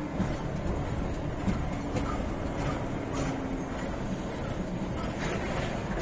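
Passenger train running along the track, heard from inside a carriage: a steady rumble of wheels on rails with a few sharp clicks.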